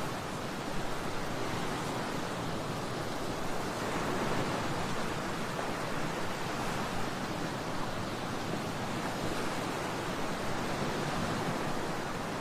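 Ocean waves: a continuous rushing surf that swells and eases slightly.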